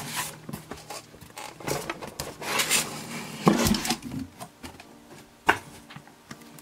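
Cardboard scraping and rubbing as a boxed marker set is slid out of a cardboard shipping box, with a dull thump about halfway through and a sharp knock near the end.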